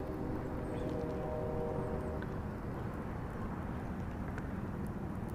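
Steady low rumble of wind on the microphone, with the hum of a distant motor that fades out a little over two seconds in.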